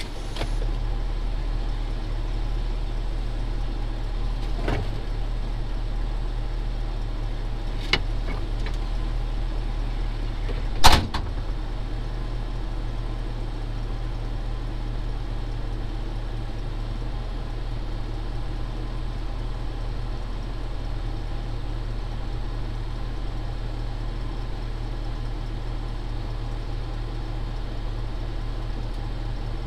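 Truck engine idling steadily with a low hum. Three short knocks break in, the loudest about eleven seconds in.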